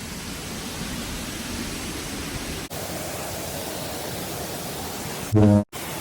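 Steady rush of a waterfall. Near the end, a brief loud buzzing tone lasting about a third of a second cuts in, then drops out to silence for an instant.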